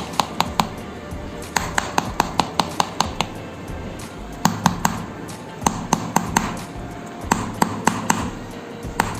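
Rapid bursts of sharp percussive taps struck on a patient's body in percussion massage, about five taps a second, stopping and starting again several times.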